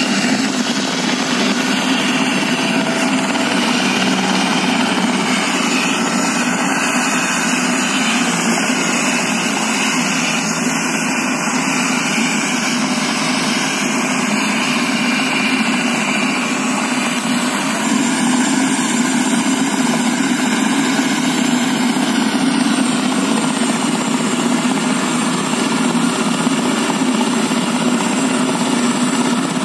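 Light turbine helicopter running steadily on the ground, its engine and main rotor turning over at a constant pitch.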